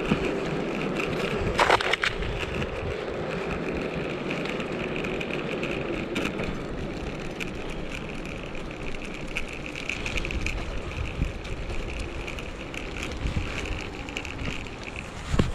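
Dogboard's air-filled tyres rolling steadily over pavement, with a few sharp knocks, one about two seconds in and one near the end.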